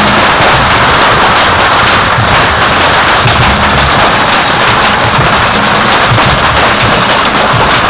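A Yanshui beehive fireworks rack firing bottle rockets and firecrackers in a dense, unbroken barrage: a loud, steady crackle and hiss with no let-up.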